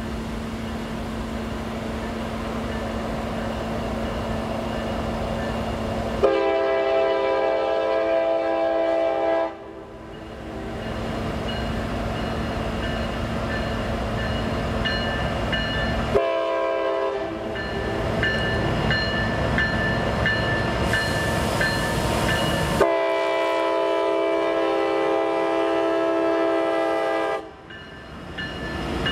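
Diesel locomotives hauling a loaded coal train, engines rumbling as they approach. The lead unit sounds its multi-tone air horn three times, a long blast about six seconds in, a short one midway and another long one near the end, signalling for a grade crossing.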